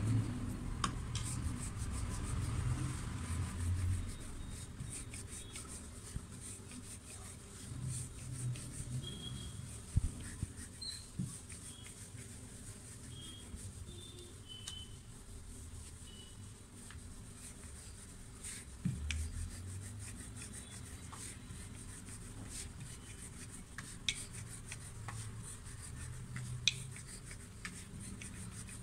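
Wooden rolling pin rolling out paratha dough on a floured work surface: repeated rolling and rubbing strokes, with a few light knocks.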